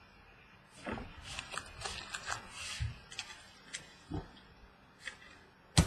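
Baseball trading cards being handled and slid across one another, a run of papery rustles and small clicks, with one sharp click near the end.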